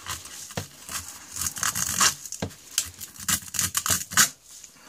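Hook-and-loop (Velcro) battery strap being peeled apart and pulled around a quadcopter frame: a run of short rasping rips and handling clicks, the loudest about four seconds in.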